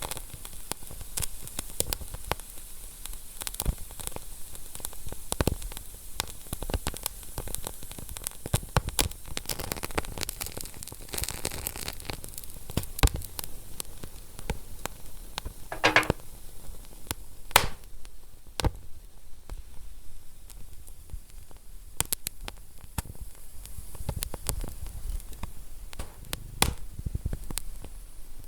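Wood fire crackling and popping irregularly over a soft hiss, with a brief louder hiss about halfway through.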